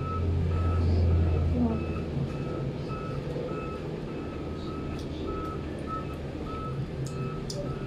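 A vehicle's reversing alarm beeping steadily, about two beeps a second, over a low engine rumble that is loudest for the first two seconds.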